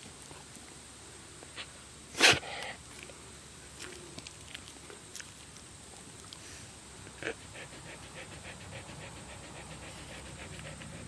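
Rough collie panting close to the microphone, speeding up into quick, even breaths near the end. A single sharp knock about two seconds in is the loudest sound.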